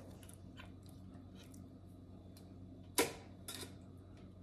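Metal kitchen tongs clicking as pieces of marinated pork rib are lifted from a stainless steel bowl and laid in an air fryer basket: a few light clicks and one sharper clack about three seconds in.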